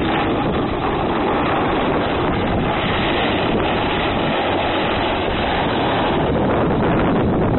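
Steady rush of wind over the microphone of a camera moving downhill, mixed with the hiss of sliding over groomed snow.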